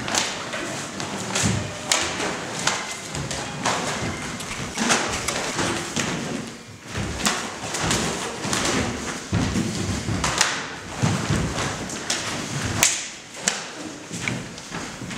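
Irregular thuds and slaps of two people sparring barefoot on a mat: hands and forearms striking and blocking, feet stepping and landing.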